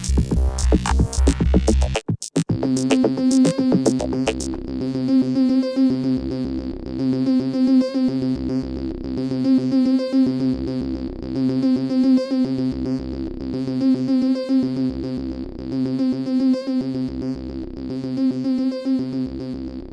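Electronic music with synthesizer. It breaks off briefly about two seconds in, then resumes as a repeating synth pattern over a steady held low note.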